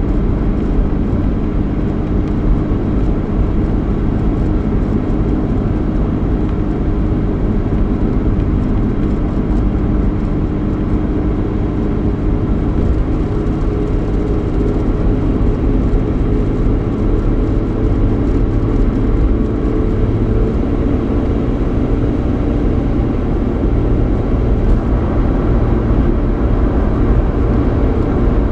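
Steady road noise and engine hum inside the cabin of a 3.8-litre V6 Ford Mustang while it drives, with a low rumble and a faint, even engine tone.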